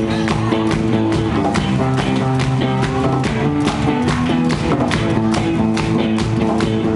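Live rock band playing an instrumental passage, guitars and drums keeping a steady beat.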